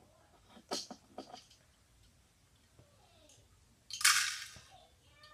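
Lego plastic parts clicking a few times as the garbage truck's front-loader arms are gripped and moved by hand, then a short, loud rattle about four seconds in as the green bin is tipped up over the cab.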